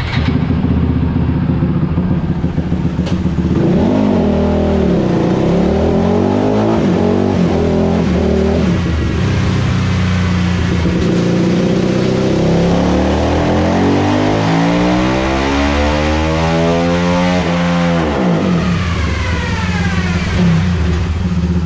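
Honda CRF450 single-cylinder four-stroke engine in a TRX450 quad, run on a roller dyno. It revs up and down for a few seconds, then climbs in one long pull of about eight seconds before the throttle is shut and the revs fall away. This full-throttle dyno pull reads still lean at the top end.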